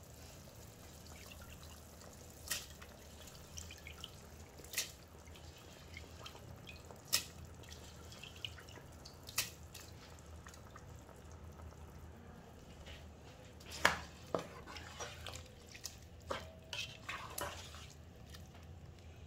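Pot of vegetables in water simmering on the stove, a faint steady background broken by single sharp pops every couple of seconds. About two-thirds of the way through comes a run of clicks and scrapes as soaked rice and vegetables are stirred in the pot with a plastic spatula.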